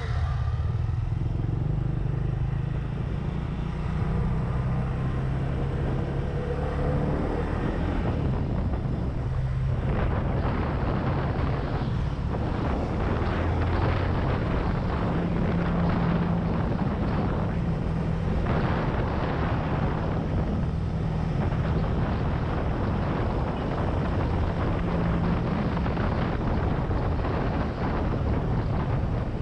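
Benelli TNT 25's single-cylinder engine running under way, its note holding steady for stretches and shifting pitch a few times as the speed changes, with a steady rush of wind noise.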